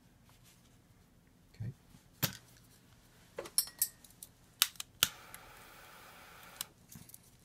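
Sharp clicks and taps of small hand tools and wires being handled at a circuit board. About five seconds in comes a soft steady hiss lasting about a second and a half, as a soldering iron is held to a joint and the flux sizzles.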